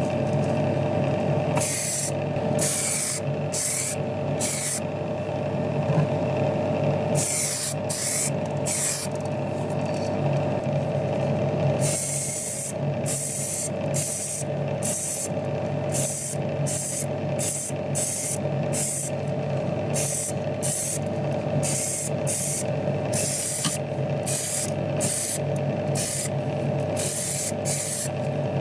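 Paint being sprayed onto small model parts in many short hissing bursts, some brief puffs and a few lasting a second or two, over a steady motor hum.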